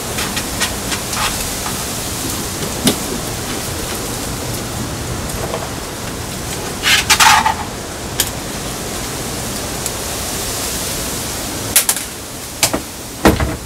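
Steady hiss with a few short knocks and clatters from hand work with tools and fittings during mounting, the biggest cluster about seven seconds in and more near the end.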